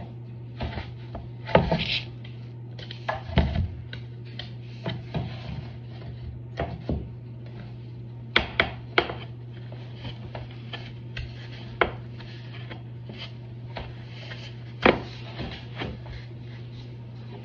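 Vinyl floor planks being handled and worked into place: irregular knocks, taps and rubbing, with a few louder knocks, over a steady low hum.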